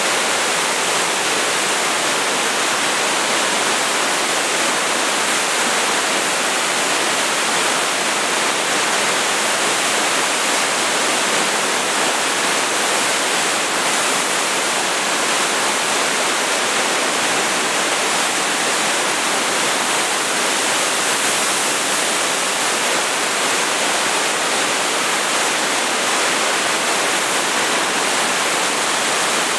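Arkansas River floodwater pouring through the open spillway gates of Robert S. Kerr Lock and Dam at about 340,000 cubic feet per second, churning into whitewater below: a loud, steady, even rush of water.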